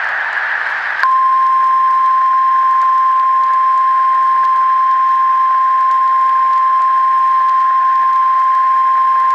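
Hiss of static, then about a second in a loud, steady, single-pitched electronic tone cuts in and holds without a break over the hiss: an emergency broadcast attention tone.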